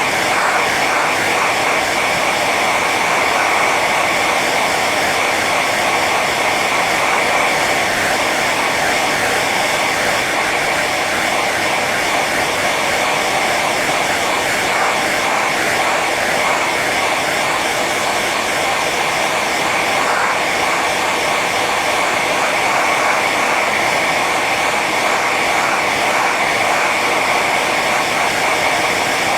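Hair dryer running steadily on its high setting: an even rush of blown air with a constant whine from the fan motor.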